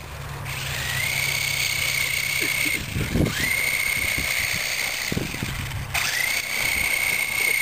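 Small electric motor of a crashed toy RC helicopter whining as it spins up, holds a steady high pitch, then cuts out and starts again, three times over, with a couple of low knocks. The helicopter is struggling on the ground after the crash, twitching but unable to fly.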